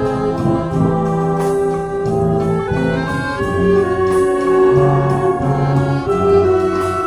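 Concert wind band playing in full: clarinets, saxophones, flutes and brass holding sustained notes and chords that move every half second to a second.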